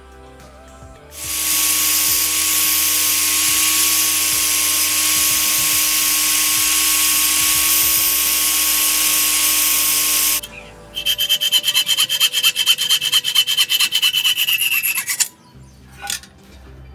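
Electric angle grinder grinding a small steel part held against its wheel: a steady, loud abrasive hiss starting about a second in and lasting about nine seconds. After a brief pause comes a second stretch of grinding, about four seconds long, that pulses very rapidly before cutting off.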